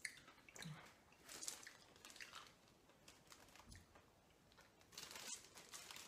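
Faint crunching and chewing of a Whoppers Robin Eggs malted-milk candy, coming in a few short spells.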